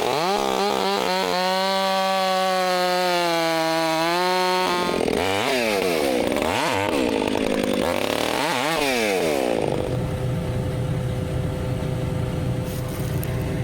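A chainsaw starts, sputters briefly and runs at high speed with a steady pitch. Then for about four seconds its pitch repeatedly dips and recovers as it cuts wood under load. It stops about ten seconds in, leaving a low steady engine rumble.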